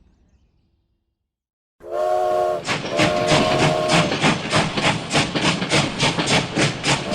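Steam-train whistle blowing a chord in blasts over a fast chugging rhythm of about four beats a second. It cuts in suddenly about two seconds in, after a near-silent gap.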